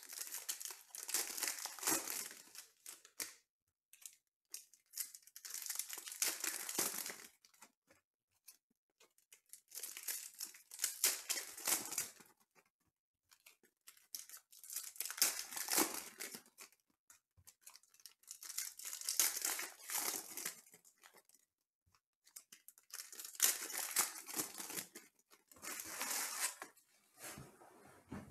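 Foil trading-card pack wrappers from Panini Contenders baseball being torn open and crinkled by hand, pack after pack. It comes in about seven bursts of two to three seconds each, with short pauses between them.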